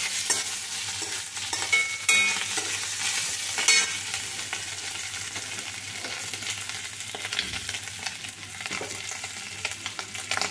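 Small boiled potatoes frying in oil in a metal kadai, sizzling steadily, while a flat metal spatula stirs them, scraping the pan with a few sharp clinks.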